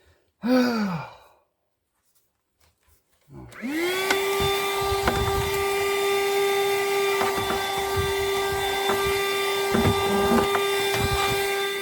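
Vacuum cleaner switched on about three seconds in, its motor spinning up to a steady high whine and running with scattered clicks and knocks, then beginning to wind down at the very end. A short sigh-like vocal sound comes just before it.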